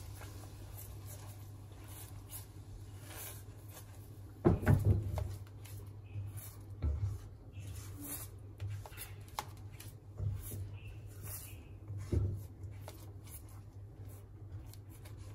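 Silicone spatula stirring and scraping a thick, sticky sauce simmering in a nonstick pan, with a few dull knocks, the loudest about four and a half seconds in and another about twelve seconds in. A steady low hum runs underneath.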